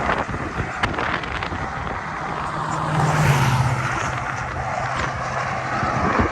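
A car driving: a steady low engine hum under road and wind noise, swelling briefly about halfway through.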